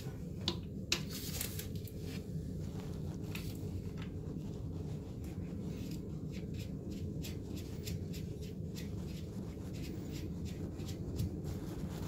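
Small clicks and scrapes of a braided toilet supply line's coupling nut being turned by hand onto the fill valve shank under the tank, with two sharper clicks about half a second and a second in, over a steady low hum.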